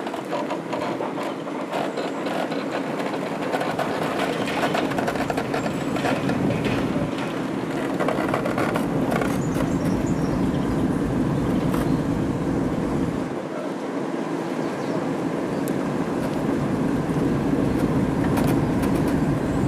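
BR Standard Class 4 2-6-0 steam locomotive 76079 moving slowly on shed, its wheels creaking and clicking over the track over a steady rumble. Wind rumbles on the microphone in places.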